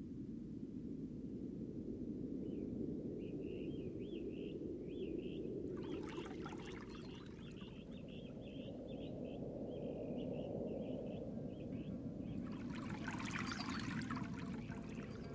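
Water running with a steady low rush and splashing twice more loudly, once about six seconds in and again near the end. Over it, a small bird chirps in quick, wavering, repeated notes through most of the first twelve seconds.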